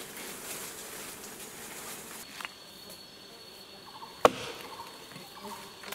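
Forest insects: a steady high-pitched insect call sets in about two seconds in, with faint buzzing of stingless bees around a nest entrance in a fallen log. A single sharp click sounds a little past four seconds.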